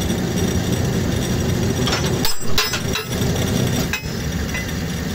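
An engine runs steadily under a wheat-straw baling press. A few sharp metal clanks come about two to three seconds in, and another knock about four seconds in, as the hinged bale-chamber door is unlatched and swung open.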